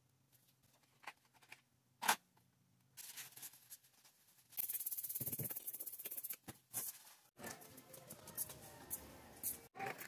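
Handling noises during work on a toilet drain: a couple of knocks, then scraping. About four and a half seconds in there is a fast, dense rattling for a second and a half, followed by more scraping and rustling.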